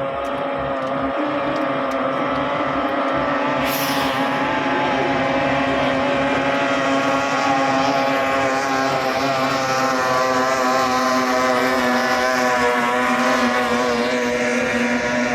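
18 hp outboard racing speedboat engine running flat out with a steady high engine note that wavers slightly in pitch. A brief hiss cuts in about four seconds in.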